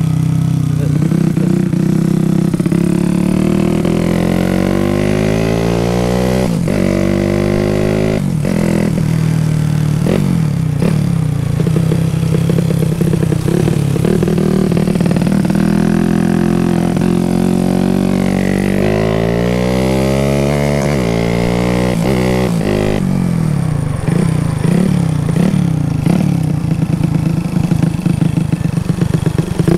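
Carburetted motorcycle engine running with its carburettor air screw tightened, which cuts the air in the fuel-air mixture so that it sounds like a helicopter. It is revved up and back down twice, then settles into a fast, even chopping beat near the end.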